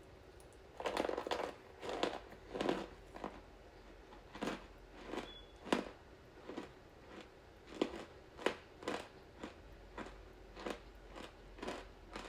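Someone biting and chewing crunchy starch chunks close to the microphone: a series of short, crisp crunches, roughly one to two a second, starting about a second in.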